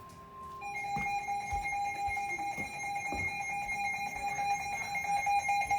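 Emergency alert tone opening a flash flood warning: a brief single steady tone gives way, about half a second in, to a louder steady electronic alarm of several pitches sounding together, pulsing evenly and growing gradually louder.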